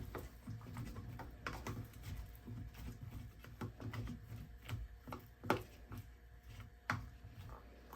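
Scattered light clicks and taps of small objects being handled, irregular and a second or so apart, over a low steady hum.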